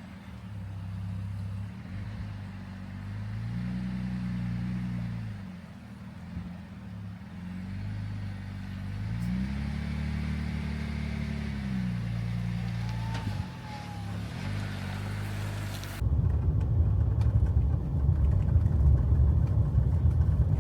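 Jeep engine running as the vehicle drives, its pitch rising and falling twice as it accelerates and eases off. About three quarters of the way through, the sound cuts suddenly to a louder, rough low rumble of driving.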